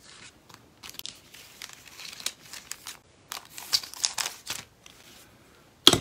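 Paper and card scraps rustling and crinkling as they are handled on a craft desk, in several short bouts, with one sharp, loud tap just before the end.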